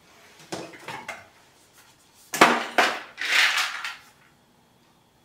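Small beauty-product containers clinking and knocking as they are handled in and out of a drawer: a few light clicks, then two sharp knocks about two and a half seconds in, followed by a brief scraping rustle.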